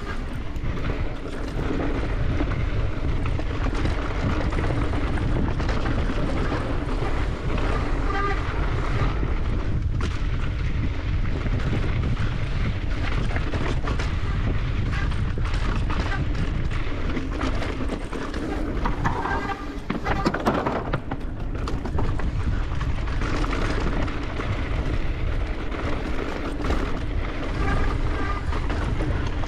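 Wind rushing over the rider-mounted microphone, mixed with the tyre and rattle noise of an Evil Insurgent full-suspension mountain bike descending a dirt bike-park trail.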